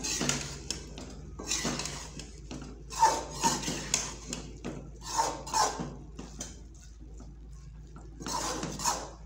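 Metal spoon scraping and clinking against a steel pan while stirring thick cooked chickpeas, in clusters of strokes with short pauses between them.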